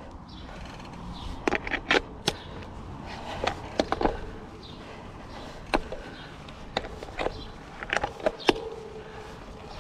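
Irregular sharp clicks and knocks, about a dozen, from working on a road bike during a stop to raise and re-tighten its seat post, which had been slipping down.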